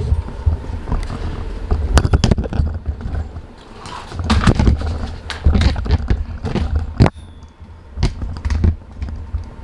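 Irregular knocks, clicks and clatter of parts and fasteners being handled while working on the car, with a low rumble coming and going.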